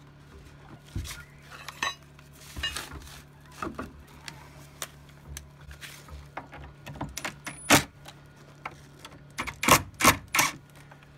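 Metal clinks and knocks from a steel door hinge being seated on its pin, with a few short, louder bursts from a cordless impact driver on the hinge screws about three-quarters through and near the end.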